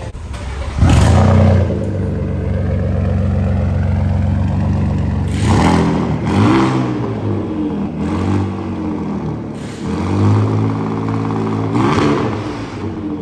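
Vehicle engine catching with a loud burst about a second in, then running steadily and revved up and back down in about five short blips.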